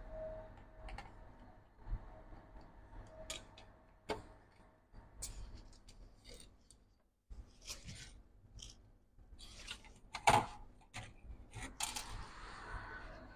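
Light clicks and taps of an aluminium MacBook Pro being taken apart by hand, its bottom case lifted off and parts handled on the bench, with one sharper knock about ten seconds in.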